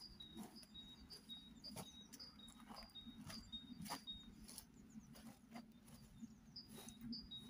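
Faint outdoor quiet: a small bird calling in short high notes about twice a second, pausing midway and starting again near the end, with a few soft knocks.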